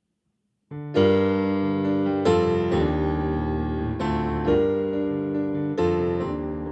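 Piano playing slow, sustained chords that begin about a second in after silence, each chord struck and left to ring: the introduction to a sung worship refrain.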